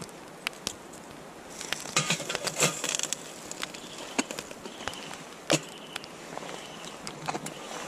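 Metal clinks and clatter as the parts of a stainless steel twig stove are handled, a pot stand fitted on top and a small kettle set on it. A run of sharp knocks about two to three seconds in and a single loud knock at about five and a half seconds.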